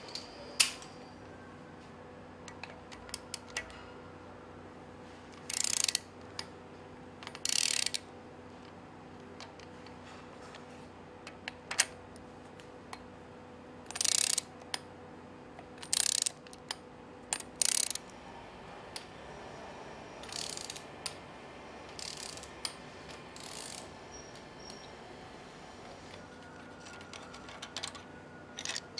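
Hand-held power tool run in about eight short bursts of half a second to a second each, driving bolts on an engine's cylinder head. Light metal clicks of small parts being handled fall in between.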